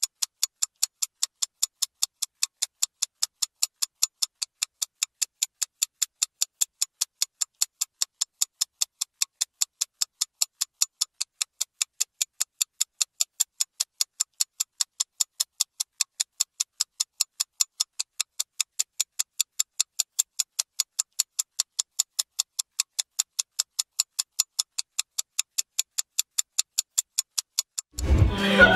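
A clock ticking sound effect: an even, rapid run of crisp, high ticks, several a second, marking time passing. It stops shortly before the end.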